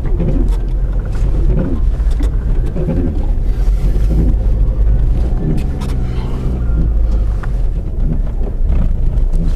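Car running along, heard from inside the cabin: a steady low engine and road rumble.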